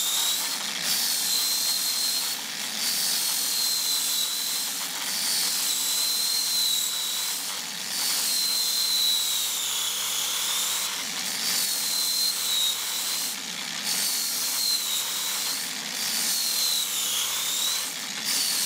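Angle grinder with a sanding disc running with a high motor whine that sags in pitch and recovers again and again as a chip on a circuit board is pressed against the disc and ground down in layers. There are short breaks in the sound every couple of seconds.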